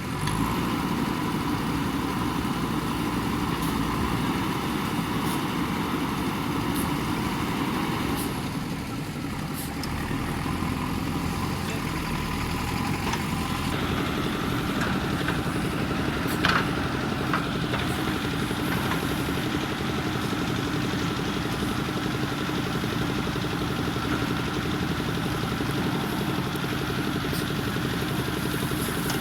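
Diesel engine of a JCB 3DX backhoe loader running steadily as the machine works, with a single sharp knock about halfway through.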